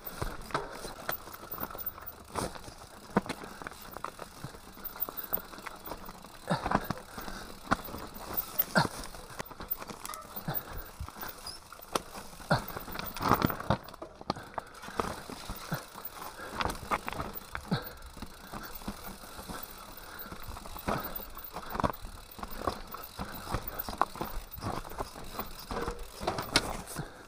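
Mountain bike rolling down rough, rocky singletrack: tyres running over stones and grass, the bike rattling, with frequent irregular knocks as it hits bumps.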